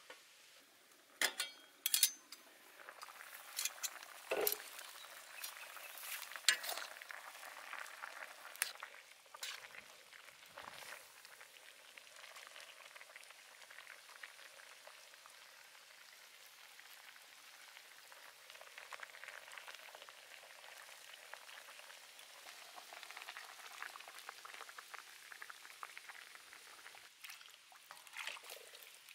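Pork intestines simmering in broth in a wok: a steady bubbling sizzle, with sharp clinks and knocks of metal tongs and a ladle in the first several seconds.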